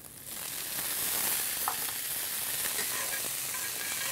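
Garbanzo beans, chorizo and pearl onions sizzling in a hot cast-iron skillet. The sizzle swells about a quarter second in as the onions hit the pan, then holds steady while a metal spoon stirs them.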